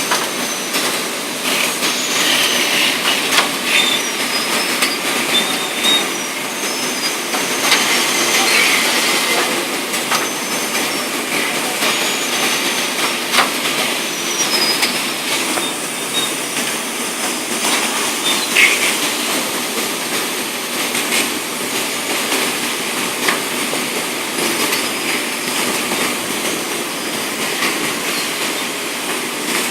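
Cat litter bagging machine running: a steady mechanical din with frequent clicks and knocks, and short high squeals at irregular moments.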